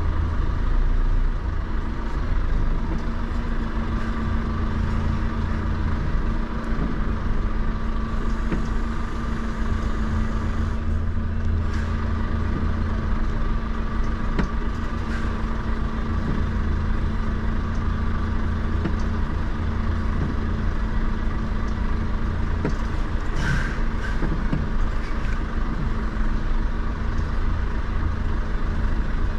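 Semi-truck's diesel engine running at a steady idle. Two brief hisses come through, one about 11 seconds in and a louder one about 23 seconds in.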